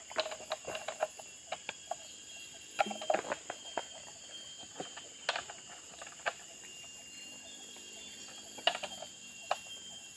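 A steady high-pitched insect drone from tropical forest insects, with scattered sharp knocks and clicks from hands working around sawn planks. The loudest clicks come about three seconds in and again near nine seconds.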